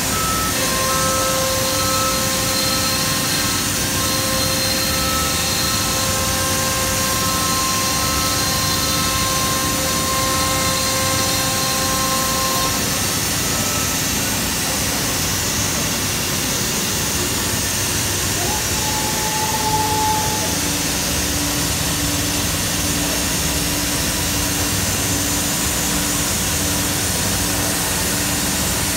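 Holz-Her Cosmec Conquest 510 CNC router running: a loud, steady machine noise with whining tones. Two steady whines stop about halfway through, a brief higher whine sounds about two-thirds in, and a lower whine starts just after it.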